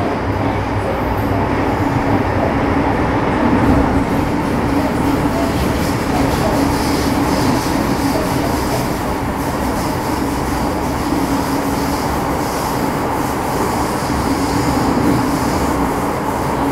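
Running noise of an MTR Metro Cammell M-Train electric multiple unit with GEC GTO chopper traction, heard from inside the car between stations: a steady rumble of wheels on track with a constant low hum.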